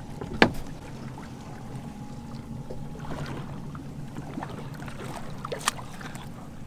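A steady low mechanical hum from the fishing boat, with a sharp click about half a second in and another near the end.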